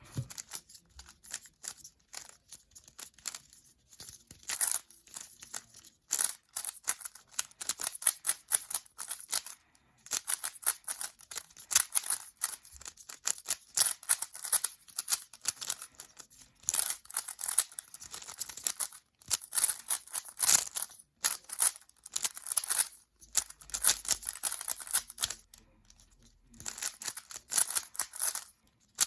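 GAN 13 Maglev 3x3 magnetic speedcube being turned rapidly through a timed solve: bursts of fast plastic clacking from the layer turns, broken by a few short pauses.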